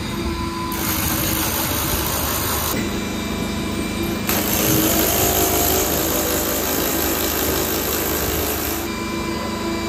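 Rotary hammer drill with a long masonry bit boring up into the brickwork of an arch soffit, a loud steady drilling noise that changes abruptly in character a few times.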